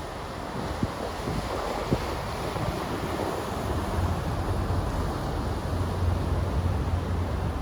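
Wind buffeting the phone's microphone over a steady outdoor rush, with a low rumble growing stronger about halfway through.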